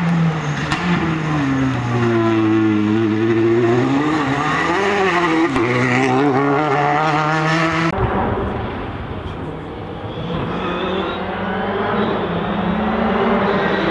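Rally car engine driven hard, its pitch dipping and rising with throttle and gear changes. About eight seconds in the sound cuts abruptly to another rally car's engine, quieter, its pitch climbing slowly.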